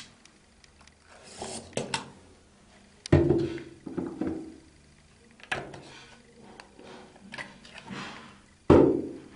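A series of irregular knocks and thuds, about a dozen in all, the loudest about three seconds in and near the end, some followed by a short ring.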